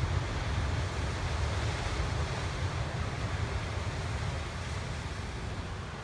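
Ocean surf breaking and washing over rocks, a steady rushing noise, with wind buffeting the microphone as a low rumble.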